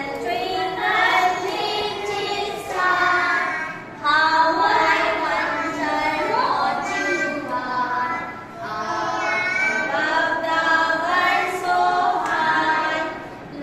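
A group of young children singing a nursery rhyme together, with a woman's voice singing along to lead them. The singing comes in phrases, with short breaks about four and eight and a half seconds in.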